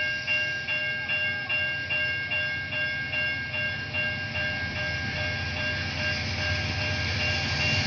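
Warning bell ringing steadily, about two and a half strikes a second, over the low rumble of an approaching diesel locomotive hauling an empty 136-car iron-ore train up a grade. The rumble grows louder toward the end as the ringing fades back.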